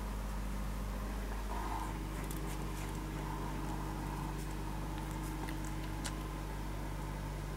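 Steady low hum with a few faint, short clicks.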